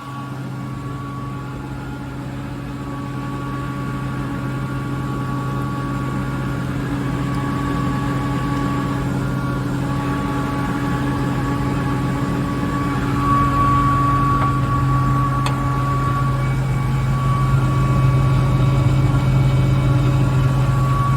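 KAESER SK25 rotary screw air compressor with frequency-controlled drive running loaded, a steady hum with a higher whine, growing slowly louder. It is building pressure in the air receiver toward its 8-bar set point.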